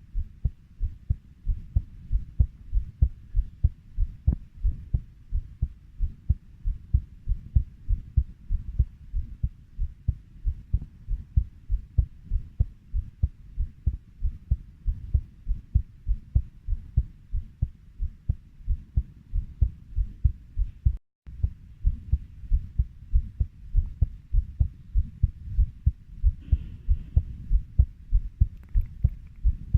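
Heartbeat at a steady 90 beats per minute: a regular lub-dub of paired low thuds. It cuts out for a split second about two-thirds through.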